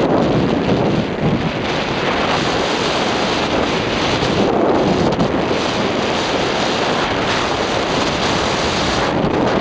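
Loud, steady rush of wind buffeting the camera microphone, from the air streaming past while riding fast downhill on snow.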